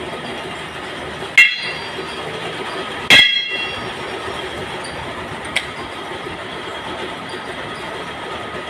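Steel power-loom crankshaft rods clinking against each other and ringing: two sharp clinks about a second and a half apart, the second the louder, then a lighter one about two seconds later, over a steady mechanical din.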